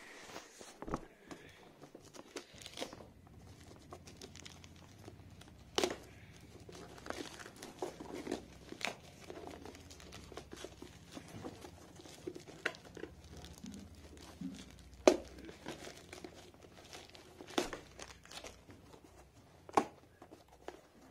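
Parcel packaging being unwrapped by hand: a plastic courier mailer and paper wrapping crinkling and tearing, irregular rustling broken by several sharp crackles and rips.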